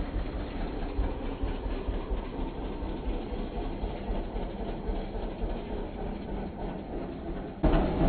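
Woodland Mills HM130 Max bandsaw mill running under power, its engine and band blade cutting along a log as the saw head travels. Steady, and suddenly louder near the end as the saw head comes up close.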